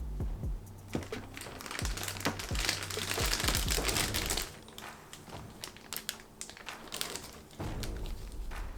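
Packaging crinkling and rustling while being handled during an unboxing, densest in the first half, with scattered sharp clicks and taps.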